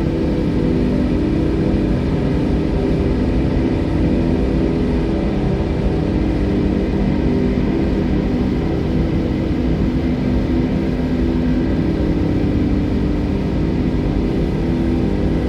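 Steady low rumbling wash of sea water, without separate wave breaks, with a few sustained low tones held over it.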